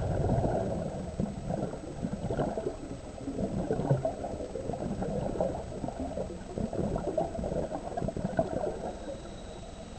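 Exhaled bubbles from a scuba diver's regulator, an irregular bubbling and gurgling that starts suddenly and eases off about nine seconds in.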